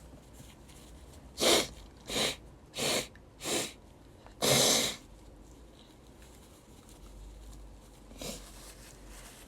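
A young woman sneezing five times in a rapid fit, about two-thirds of a second apart, the last sneeze the longest; a fainter sneeze-like sound comes near the end.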